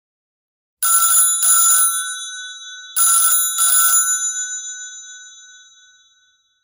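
A bell rings like a telephone: two double rings about two seconds apart, each a pair of short trilling bursts, its tones ringing on and fading away after each.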